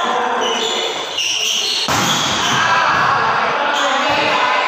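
Indoor volleyball rally: players hitting the ball, with a sharp hit about two seconds in, and players' voices and shouts ringing in a large, echoing gym.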